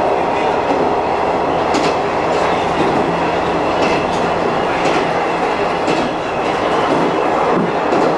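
Diesel railcar running along the line, heard from beside the driving cab: a steady engine hum under continuous rolling rail noise, with the wheels clicking over rail joints now and then.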